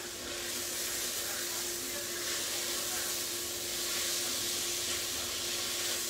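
Steady sizzling hiss from a pot of vegetables cooking on a gas hob as they are stirred with a spatula, with a faint steady hum underneath.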